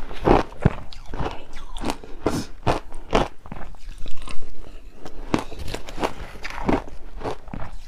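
Ice being bitten and crunched close to the microphone, a run of sharp, crisp crunches that are loudest a little past the middle.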